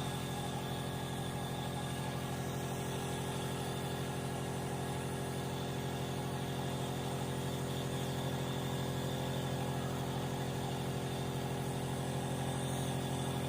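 A steady motor hum that holds one pitch and level throughout.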